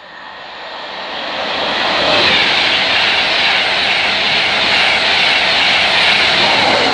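A train passing at speed on the main line: a loud rushing of wheels and air that builds over about two seconds, then holds.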